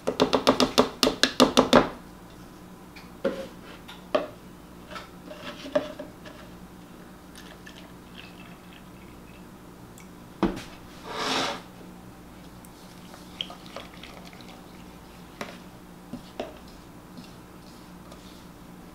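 Plastic measuring cup rapped about a dozen times in quick succession against a pottery mixing bowl to knock out the cornmeal, followed by a few scattered knocks. About ten seconds in, buttermilk pours from a plastic jug into the bowl for a second or so. Near the end come a few light taps of a spatula stirring the batter.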